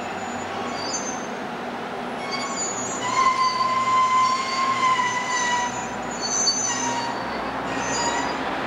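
Steam locomotive tender and coupled diesel locomotive rolling slowly on the rails, their wheels giving a high metallic squeal over a low rumble. The squeal comes and goes, louder from about three seconds in and easing off after about six.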